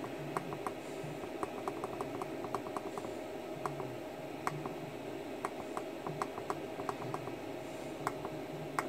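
Push buttons on a Charsoon Antimatter balance charger clicking as they are pressed over and over to step the charge current up and down: sharp, irregular ticks, some in quick runs. A steady faint hum sits underneath.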